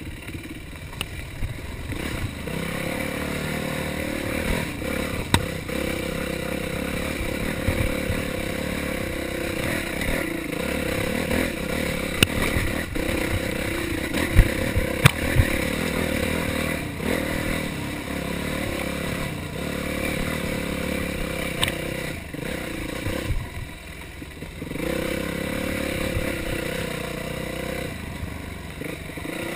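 Yamaha YZ450F's single-cylinder four-stroke engine running hard and rising and falling with the throttle on a tight woods trail, easing off briefly about three-quarters of the way through before picking up again. Sharp knocks and clatter come from the bike over the rough ground, several of them close together about halfway through.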